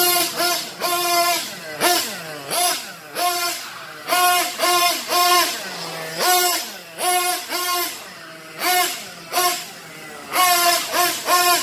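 Caster Racing ZX2.0R 1/8-scale nitro buggy engine revving in many short full-throttle bursts, its pitch climbing and holding, then falling back toward idle between each. The engine is newly broken in and its carburettor just set, and it pulls strongly.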